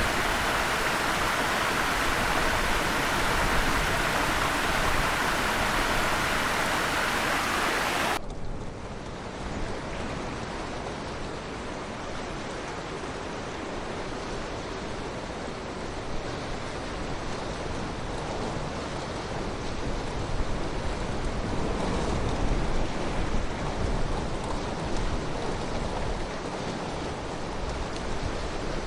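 Steady rushing of flowing river water. About 8 s in it cuts abruptly to a softer, duller rush of water, which swells a little later on.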